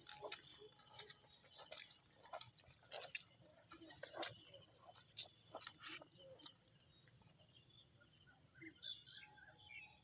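Irregular crunching and snapping clicks that stop about six and a half seconds in, followed by faint bird chirps near the end.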